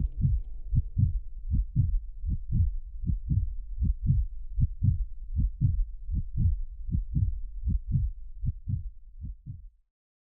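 Heartbeat sound effect: low lub-dub thumps in close pairs, about one pair every three quarters of a second, growing fainter and stopping just before the end.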